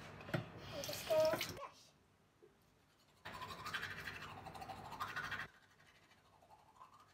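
A short burst of a girl's voice in the first second and a half, then a toothbrush scrubbing teeth for about two seconds, starting a little after three seconds in and stopping abruptly.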